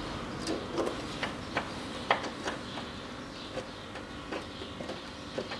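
Light, irregular metallic clicks and taps, roughly one every half second, from a nut and bolt on a car's subframe being started by hand.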